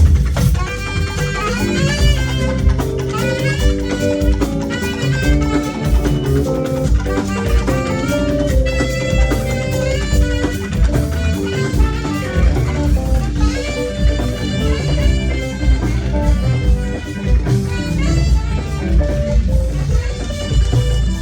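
Band music: a guitar playing quick melodic runs over bass and drums.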